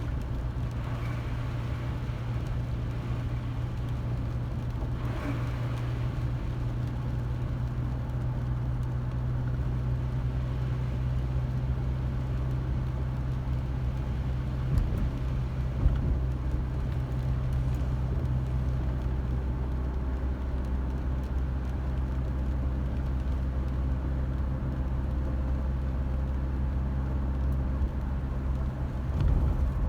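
A car driving, with a steady low engine and road hum. Two brief knocks come about halfway through.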